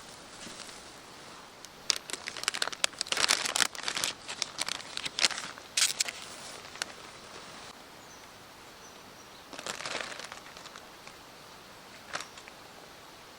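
Crinkling and rustling handling noise in irregular bursts, busiest from about two to six seconds in, then only a few scattered rustles.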